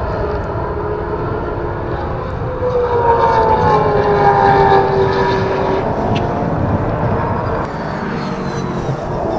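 Brabham BT62 race car's V8 engine passing at speed. Its note swells about three seconds in and drops in pitch as it goes by, then fades.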